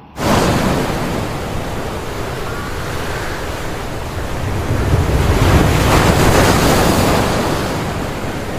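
Wind buffeting the microphone: a loud, steady rushing roar that cuts in suddenly at the start and swells a little in the middle.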